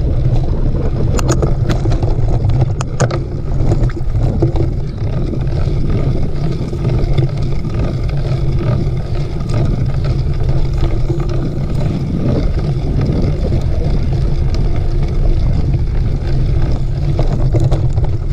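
Steady low rumble of wind and trail noise from a mountain bike being ridden, with a few sharp rattling clicks a little over a second in and again about three seconds in.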